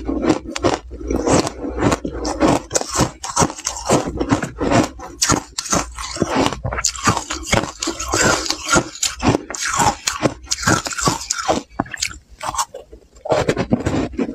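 Matcha-powder-coated ice cubes being bitten and crunched in the mouth close to a lapel microphone: a quick, uneven run of sharp crunches, easing briefly about twelve seconds in.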